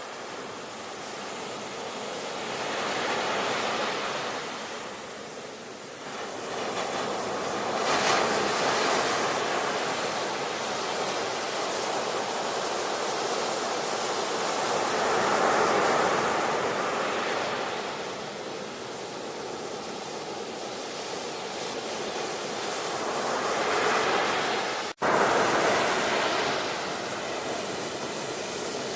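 Ocean surf: waves breaking and washing in a continuous rush that swells and ebbs every several seconds. The sound drops out for an instant near the end.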